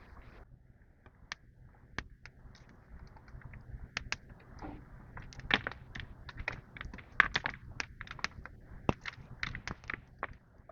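Wood campfire crackling, with irregular sharp pops that come thicker in the second half.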